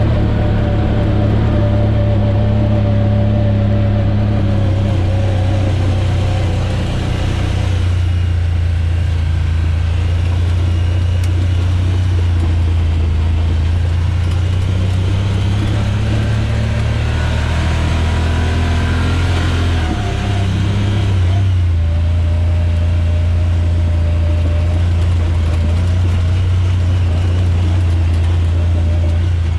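Side-by-side UTV's engine running steadily under way on a gravel trail, heard from the driver's seat over tyre and road noise. The engine note changes about eight seconds in and dips briefly about twenty seconds in before settling again.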